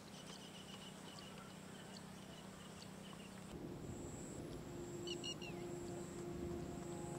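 Quiet rural field ambience: a bird chirping over and over, with a thin steady high-pitched hum behind it. About halfway through, a low held music note comes in and grows louder, with a short falling bird call over it.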